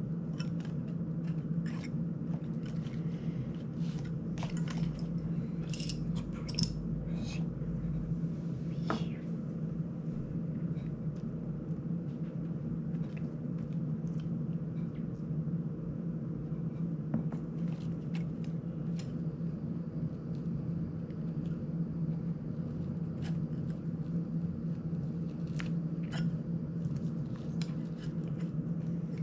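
Small plastic and metal parts of an FPV drone being handled and fitted by hand: scattered light clicks and taps of propeller guards, propellers and small screws, over a steady low hum.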